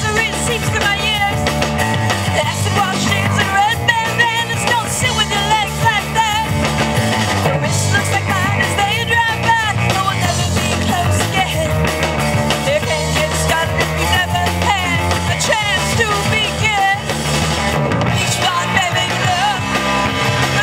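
Live rock band playing: a woman sings lead over electric guitars, bass guitar and a drum kit.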